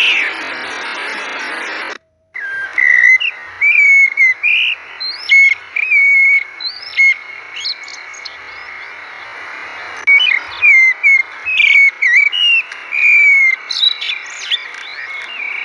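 Many short, high bird-like chirps and whistles, several gliding up or down in pitch, over a steady hiss. The sound cuts out completely for a moment about two seconds in.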